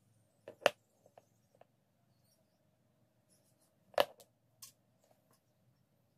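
Small glass perfume bottles handled and set down on a cutting mat: two sharp knocks, one under a second in and one about four seconds in, with a few lighter taps and clicks between.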